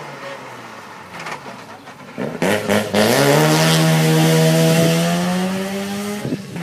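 Rally car engine running hard: the pitch falls as it comes off the throttle, a few sharp cracks come about two and a half seconds in, then it accelerates with a rising pitch and holds high revs, loudest just after the middle.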